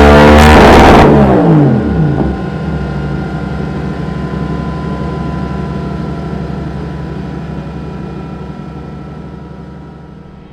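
BMW F900R parallel-twin motorcycle engine revved hard. About a second in it drops back and settles into a steady idle, which slowly fades away.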